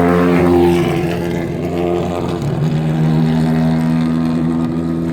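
Competition hill-climb cars driving past one after another at low speed, engines running at a steady, even pitch. One car's note falls away about a second in, and a second car's engine holds a steady note before dropping off suddenly at the end.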